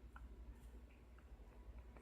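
Near silence: room tone with a low hum and a few faint small ticks.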